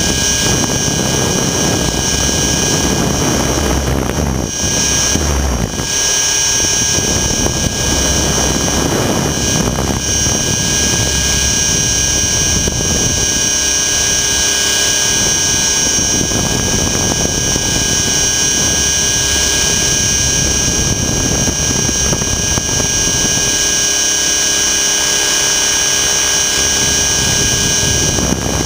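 Align T-Rex 600 ESP electric RC helicopter in flight, heard through a camera mounted on its frame: a loud, steady high-pitched whine from the motor and drivetrain over rotor noise and a low rumble that eases off twice.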